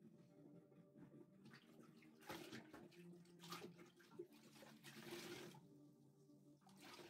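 Faint bursts of hissing liquid as a foaming cleaner is applied inside a bathroom sink cabinet, three or four short rushes, over a faint steady low hum.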